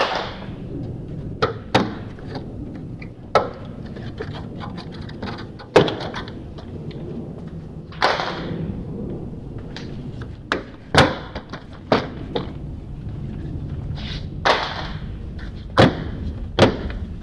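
Plastic trim panels around a Tesla Model X frunk being pulled up by hand: irregular sharp clicks and knocks as the push-in clips pop free and the panels are handled, with a few brief scraping swishes of plastic.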